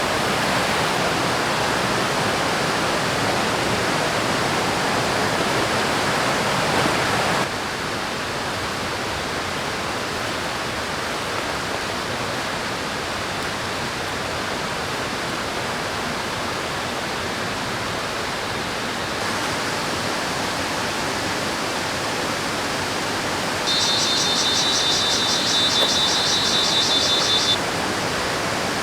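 Rushing river water, a steady hiss that drops a little in level a few seconds in. Near the end a high-pitched trill sounds for about four seconds over it.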